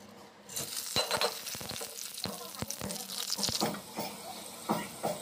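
Whole spices (cumin seeds, bay leaf, cardamom) dropped into hot oil in a steel kadai, sizzling with scattered sharp crackles as they temper. The sizzle starts about half a second in.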